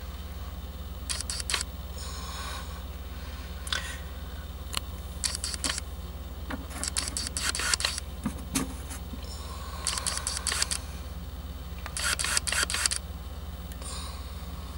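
Intermittent handling noises: short clusters of clicks and scrapes, about eight of them, over a steady low hum.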